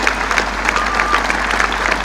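Large crowd applauding: a dense, steady patter of many hands clapping.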